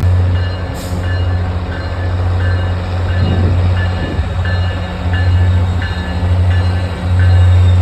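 Diesel train engine running with a steady deep hum, while a bell-like ding repeats about every 0.6 seconds from half a second in, as a train bell rings.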